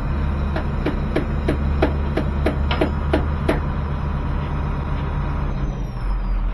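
A hammer striking about ten times in a steady rhythm, roughly three blows a second, then stopping. An engine runs steadily underneath and drops in level near the end.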